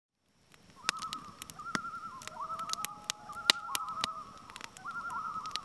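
Repeated wavering, trilling calls, several overlapping, from birds or other animals, over scattered sharp clicks or crackles.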